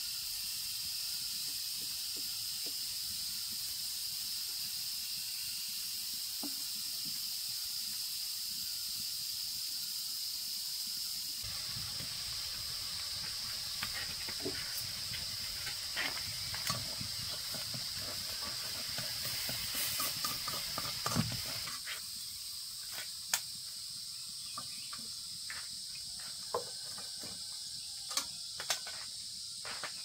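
Steady, high-pitched insect drone of crickets or cicadas, with scattered light clicks and knocks. From about eleven seconds in until about twenty-two seconds, a lower rushing noise joins in, then drops away.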